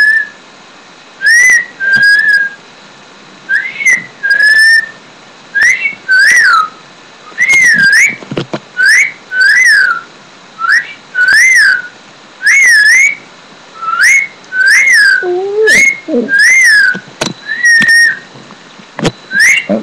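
A person whistling a run of high notes that glide up and down, about one a second, with a shih tzu joining in with lower, falling howls about three-quarters of the way through.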